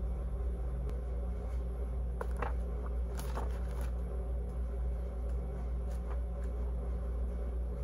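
Paperback book pages being handled and leafed through: soft paper rustles and light ticks scattered over a steady low mechanical hum.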